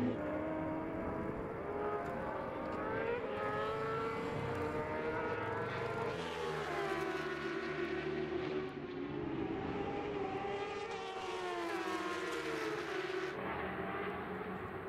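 A pack of superbike racing motorcycle engines revving hard through a corner. Several engine notes overlap, rising and falling in pitch over and over as the riders accelerate and shift. The sound thins out near the end as the pack moves away.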